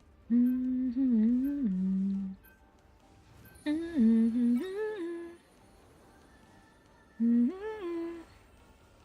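A person's voice humming a tune in three short phrases, the pitch sliding up and down within each, with pauses between them.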